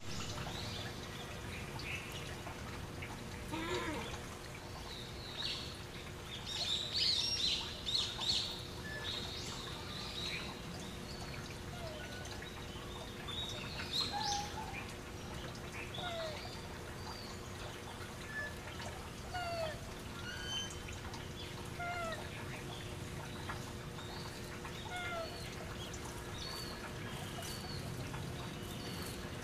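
Short high chirping calls, mostly quick downward sweeps repeated about once a second, with a denser cluster of higher calls a few seconds in, over a faint steady hum.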